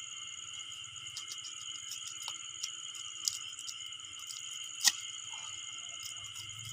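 Steady chorus of crickets and other night insects, with scattered small clicks and taps from a knife cutting a large snakehead on a wooden board; one sharper click about five seconds in.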